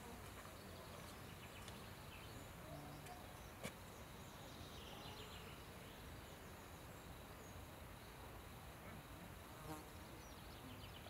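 Faint buzzing of bees flying among flowers, coming and going in short passes, with one sharp click about a third of the way in.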